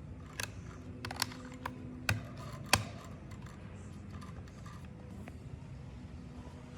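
A handful of sharp small clicks and taps, about six in the first three seconds with the loudest near three seconds in, like small parts being handled and set down on a workbench. A faint low hum runs underneath.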